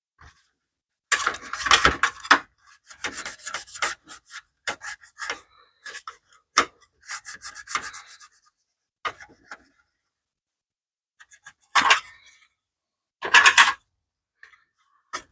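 A hand tool scrubbing and rasping grime off a sheet-metal heat shield, in irregular bursts of quick back-and-forth strokes with short pauses between them; the loudest bursts come about a second in and again near the end.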